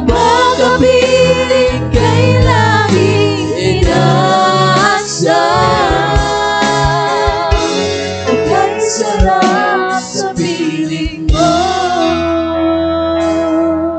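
Two women singing a Tagalog worship song with a live band of electric guitar, bass guitar and electronic drums.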